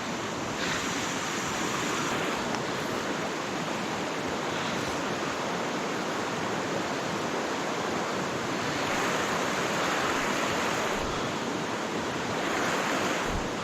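River water flowing steadily: an even, unbroken hiss of current.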